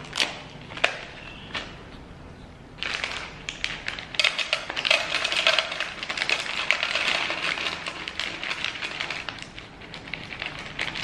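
A plastic snack bag crinkling and dry seeds pouring and rattling into a plastic pet bowl. A few separate clicks come first, then about three seconds in a dense run of small clicks and rustles.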